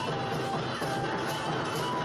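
Live Jharkhandi folk music: a flute melody in short held notes over a plucked-string and rhythmic accompaniment.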